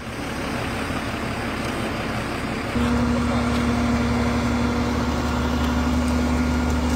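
Fire truck engine running steadily. About three seconds in, it gives way to a louder, even hum with a low drone and a held tone.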